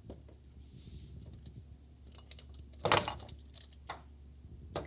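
Metal engine parts being fitted together by hand: a rotary valve and its bearing clinking against each other. There are light clicks and taps throughout, one loud ringing clink about three seconds in, and another sharp click near the end.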